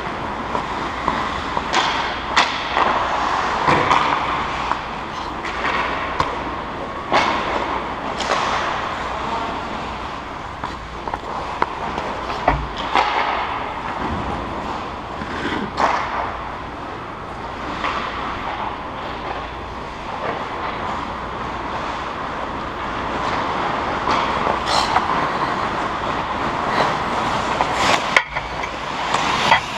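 Ice hockey play heard from the goal: a steady scraping of skate blades on the ice, broken by many sharp clacks of sticks and puck.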